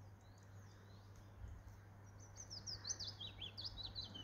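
Songbird singing: a quick run of high chirping notes that starts about two seconds in, over a faint, steady low hum.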